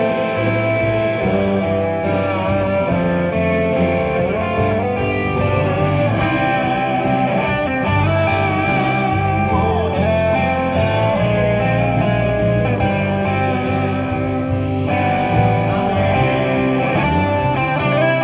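Live band music: electric guitar, Yamaha keyboard, bass guitar and drums playing together.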